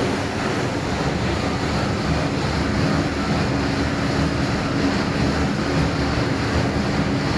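Dishwasher running its wash cycle: a steady rush of water spraying, with a low motor hum from the wash pump underneath.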